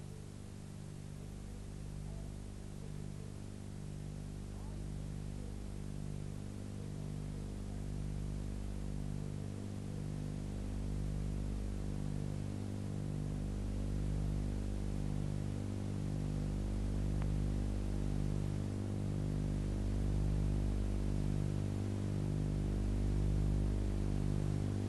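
Steady low electronic hum made of several held tones, one of them pulsing about once a second, growing slowly louder.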